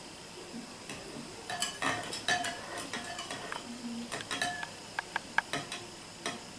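A spoon stirring jelly crystals into hot water in a bowl, clinking irregularly against the bowl's sides. The clinks start about a second and a half in.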